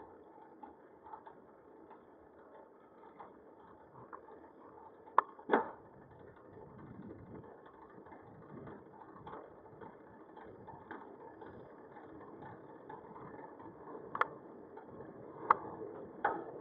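Steady road and riding noise from a bicycle on the move. It is broken by sharp knocks: two about five seconds in and three more near the end.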